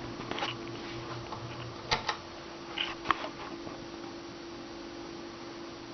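1987 Tatung Sunstar 42-inch ceiling fan running with a steady motor hum. A few sharp clicks come through about half a second, two and three seconds in.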